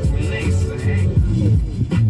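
Hip hop music with a heavy bass, in a stretch without rapped words.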